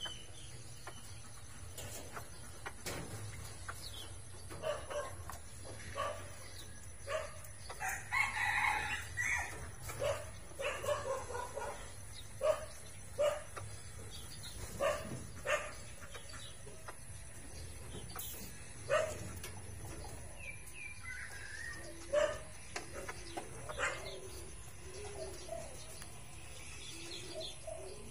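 Chickens clucking, with a rooster crowing once about eight seconds in, among scattered sharp clicks and knocks.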